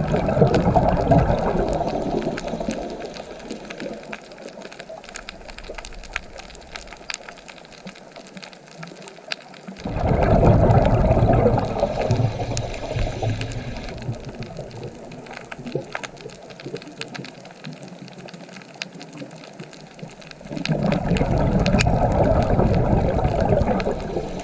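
Ocean waves breaking, three surges about ten seconds apart: at the start, about ten seconds in and about twenty-one seconds in. Each fades away slowly, with scattered small clicks in the lulls.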